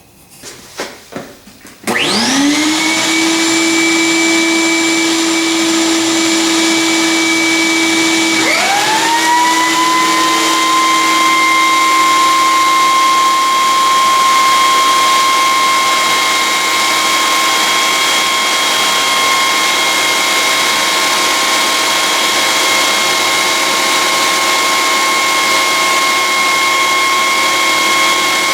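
Two electric shop machines switched on one after the other, one about 2 seconds in and the other about 8.5 seconds in. Each winds up quickly to a steady whine, and then both run together without cutting. One of them is the Cutech 6-inch jointer planer with its helical cutterhead, started after its cutter inserts were replaced.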